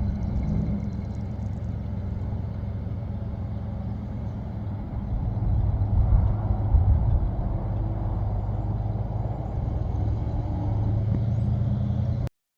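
1969 Ford F-250 Highboy pickup's engine running steadily, getting louder about five seconds in for a couple of seconds, then settling back. The sound cuts off abruptly near the end.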